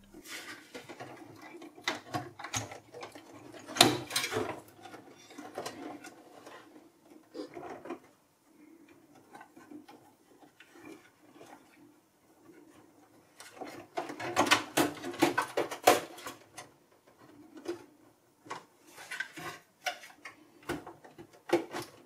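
Handling noise inside an open desktop PC case: scattered clicks, knocks and rustling as power cables are pushed aside and a graphics card is worked into its slot. Busier runs of clicks come about four seconds in and again from about fourteen seconds.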